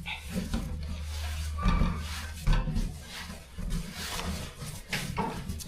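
Hands working soft mandazi dough on a wooden surface, giving soft irregular knocks and rustles.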